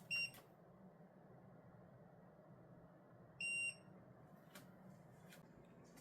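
Two short electronic beeps from a household appliance, the first right at the start and the second, slightly longer, about three and a half seconds in.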